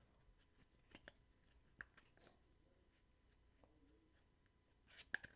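Near silence: room tone with a few faint, short clicks.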